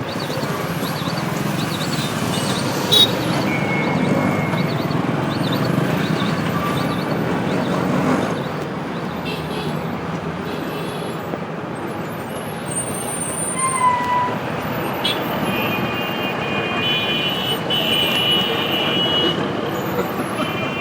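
Busy road traffic with steady engine and road noise, and vehicle horns honking now and then, several overlapping near the end.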